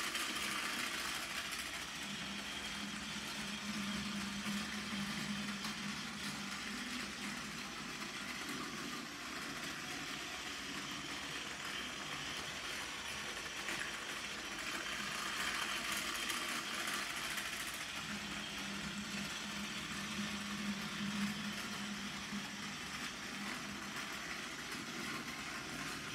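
Plarail TS-24 Caitlin battery-powered toy train running laps on plastic track: a steady small-motor whine with wheel rattle. Its sound shifts between a low hum and a brighter rattle about every fifteen seconds as it circles the oval.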